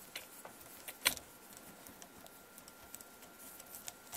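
Faint light ticks and clicks of a hex driver turning a small bolt out of an RC crawler's shock mount, with one sharper click about a second in.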